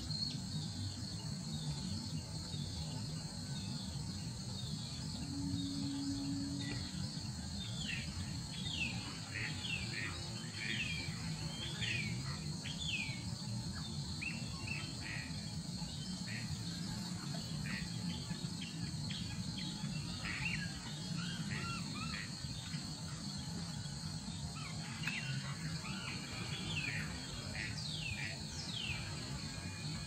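A steady, high-pitched insect drone runs under many short, falling bird whistles that come in loose runs from about eight seconds in, over a low background rumble.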